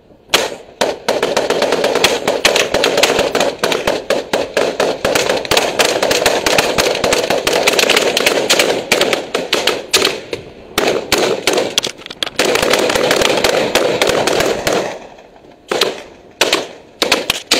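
Rifle fire: rapid, near-continuous shooting for about fifteen seconds, then a handful of separate single shots near the end.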